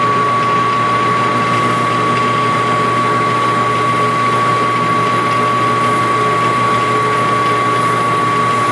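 Metal lathe running at about 360 rpm, its drive giving a loud, steady whine with one strong high tone over a low hum.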